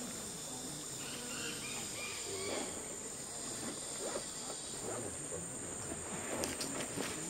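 Steady high-pitched drone of a rainforest insect chorus, with faint, indistinct sounds beneath it.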